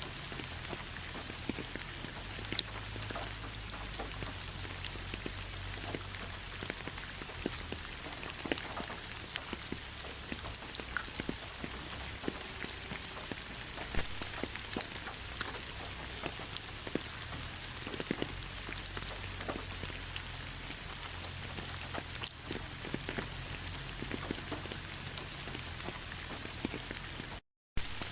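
Autumn rain falling on a bed of fallen leaves: a steady patter with many scattered individual drop ticks. The sound cuts out for a fraction of a second near the end.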